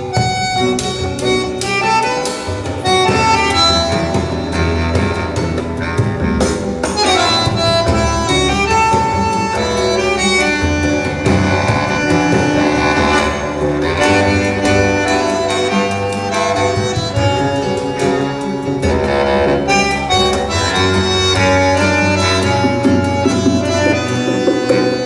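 Instrumental music played at a steady, fairly loud level over a high-end hi-fi system of VAC valve amplifiers driving Focal floor-standing loudspeakers, heard in the demo room.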